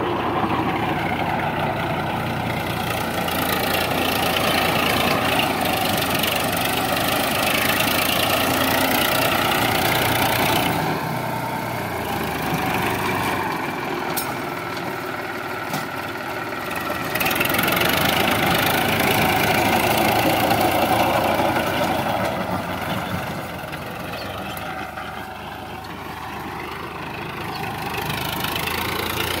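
Sonalika DI 745 tractor's diesel engine running steadily as it drives a rear-mounted rotavator tilling the soil. It grows louder and quieter a few times as the tractor moves nearer and farther away.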